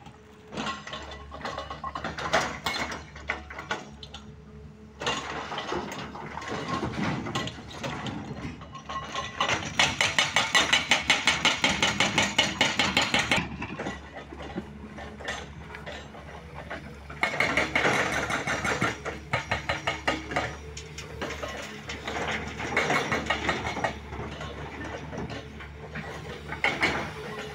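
Heavy diesel machinery running steadily, with stretches of rapid, rhythmic mechanical clattering and knocking, the loudest run at about five knocks a second near the middle.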